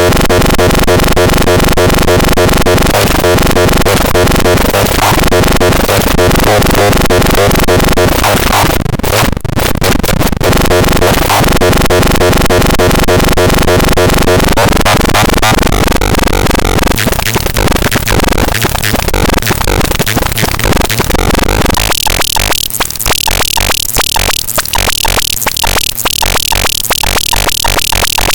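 Loud, dense, distorted electronic music: buzzing layered tones chopped into rapid pulses. About 22 seconds in it turns into a choppier run of separate stuttering pulses.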